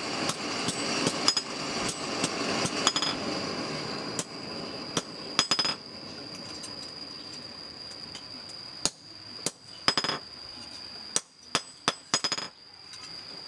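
A blacksmith's hand hammer striking a steel blade on a small round anvil. Sharp metallic strikes come quickly and often for the first few seconds, then thin out into scattered single blows and short clusters.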